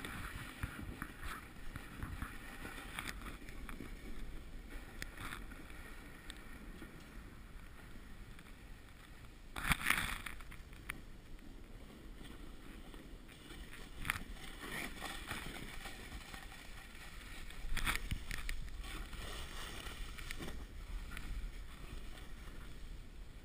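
Snowboard sliding down a snow run, its edges scraping the snow, with a few louder scrapes on the turns: the loudest about ten seconds in, another near eighteen seconds.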